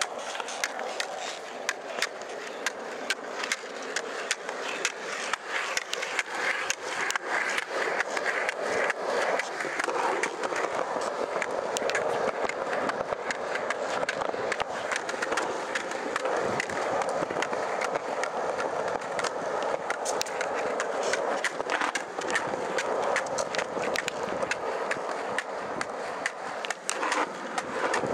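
Skateboard wheels rolling over a hard outdoor court, a steady rolling noise with frequent small clicks and knocks from the board and wheels.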